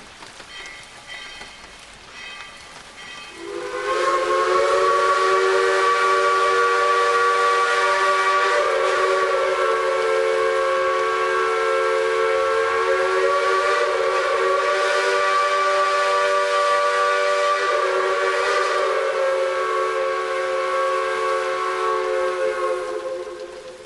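A three-chime steam locomotive whistle sounding one long blast of about twenty seconds. It slides up into its chord about three seconds in, wavers slightly twice while held, and fades out near the end, with a hiss under it. The uploader believes it is Dollywood 192's worn Crosby three-chime whistle.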